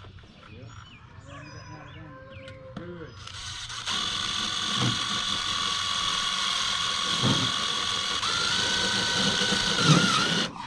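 Cordless drill driving a screw through the fascia metal: the motor starts about three seconds in and runs steadily, steps up in pitch about two seconds before the end, and stops suddenly.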